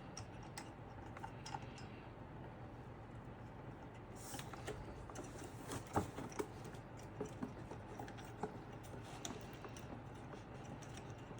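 Faint, scattered small clicks and taps of PC parts being handled, with a sharper click about six seconds in and a few more soon after.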